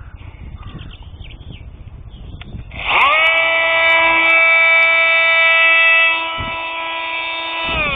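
Bosch Multitool 250 oscillating multi-tool with a sanding pad switched on about three seconds in. It spins up to a steady, high-pitched drone, runs somewhat quieter for its last couple of seconds, then is switched off near the end, its pitch falling as it winds down.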